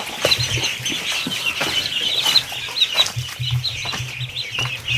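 A crowd of young ducklings peeping nonstop, many short high chirps overlapping, with a few scattered knocks among them.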